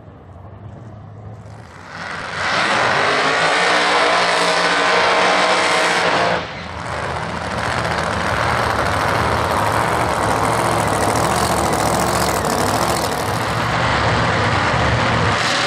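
Supercharged V8 engine of a Ford Mustang drag car running hard at high revs through a burnout. It comes in loud about two seconds in, drops off briefly about six seconds in, then runs loud again.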